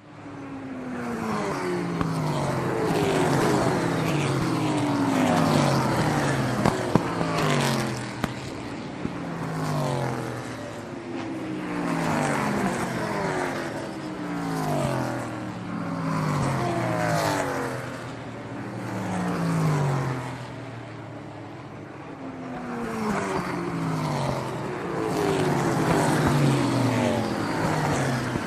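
Sports car engine running hard, its pitch sweeping down over and over, with the loudness swelling and easing every two to three seconds.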